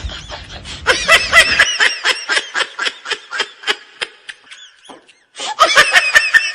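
High-pitched laughter in quick 'ha-ha' bursts, several a second, breaking off about five seconds in and starting again just after.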